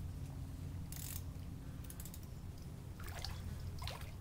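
Fishing reel being cranked and clicking as a hooked fish is played from a kayak, over a steady low rumble. Near the end the fish splashes at the surface.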